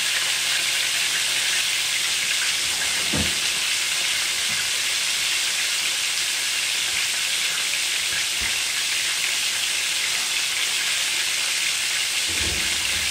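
Breaded chicken breasts frying in about half an inch of hot oil at 375°F in an electric skillet, a steady even sizzle. A few faint low knocks come through about three seconds in and again near the end.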